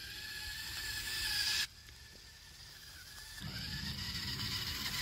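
Small DC gear motors of a four-wheeled Arduino robot car whining at a steady high pitch over a rushing noise. The sound cuts off abruptly about one and a half seconds in. A fainter whine then carries on and grows louder, with a low rumble joining at about three and a half seconds.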